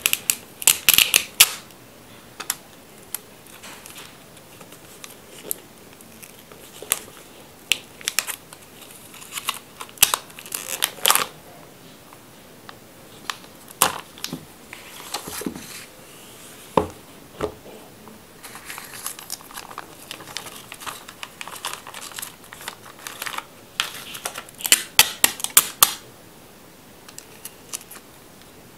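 Clear plastic shrink wrap and a sealed plastic pouch being peeled and torn off a phone's retail box, crinkling and crackling in irregular bursts with pauses between.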